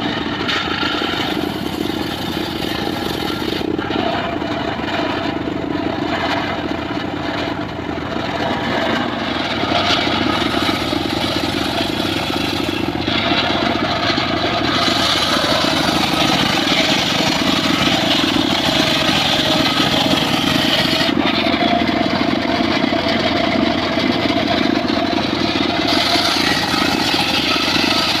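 Homemade bench circular saw running steadily as its large blade rips teak logs lengthwise, a continuous mechanical whine and drone that changes abruptly a few times.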